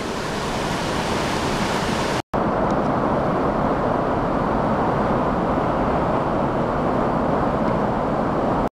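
Steady, loud rush of the Merced River's whitewater cascading over granite slabs above Vernal Fall. It breaks off in a brief gap a little over two seconds in and resumes slightly louder.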